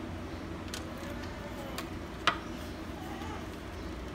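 Stand mixer being handled to lift its paddle out of thick cookie dough: a low steady hum with a few light clicks, and one sharper click a little over two seconds in.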